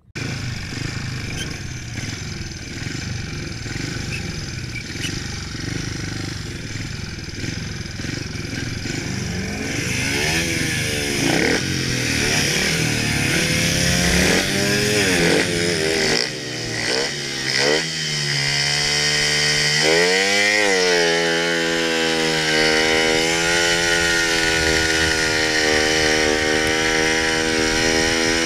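Speedway bike's single-cylinder methanol engine, heard from on board. It runs at low, uneven revs for the first ten seconds or so, then revs up and down repeatedly. From a little past halfway it holds steady at high revs, with one brief dip and pick-up.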